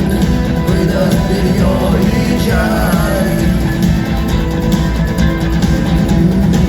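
Rock song played by a band: electric guitar and drum kit with a steady beat, and a sung vocal line.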